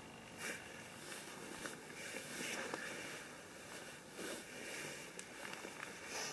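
Brief rustling and handling noises, a few seconds apart, over a steady background hiss.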